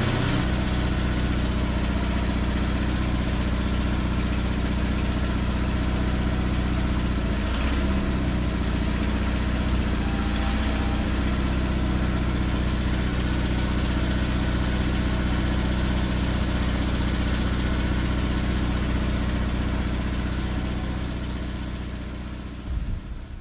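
A 1994 Ford E350 bucket van's engine idling steadily, fading out near the end.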